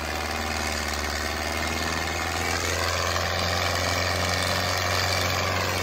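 Diesel tractor engines running hard under load as a Mahindra Arjun Novo 605 and a John Deere 5075E pull against each other, chained together in a tug-of-war. The engines make a steady low drone.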